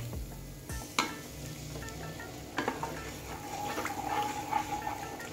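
Milk poured into frying masala paste in a kadhai, sizzling while a wooden spatula stirs and scrapes the pan. Two sharp knocks come about a second in and again at two and a half seconds.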